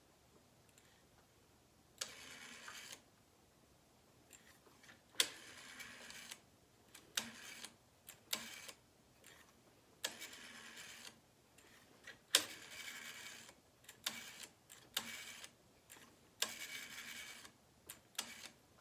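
Plastic conditioner bottles handled in short bursts. Each burst opens with a sharp tap or clack and runs on for about a second of shaking and rustling. This happens about nine times with pauses in between.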